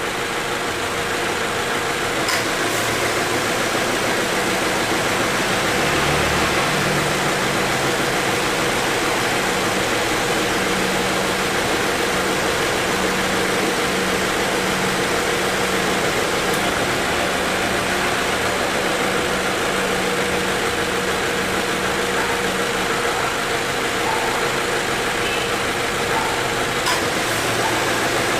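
A 2018 Subaru XV 2.0's flat-four engine idling with the air conditioning running. The A/C compressor cycles on with an abnormal noise at start-up, which the mechanic attributes to light compressor wear. A steady hum comes in about six seconds in and drops out about 23 seconds in, with short clicks near the start and near the end.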